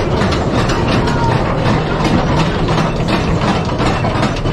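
Ride train of ore cars rolling along its track, a loud steady rumble with a dense clatter of wheels on rail.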